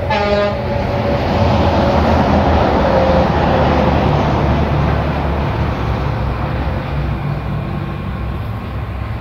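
A vehicle passing on the road: a rushing noise that swells over the first couple of seconds and slowly fades away.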